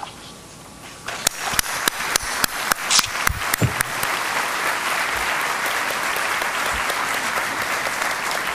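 Audience applauding: scattered claps begin about a second in and build into steady full applause.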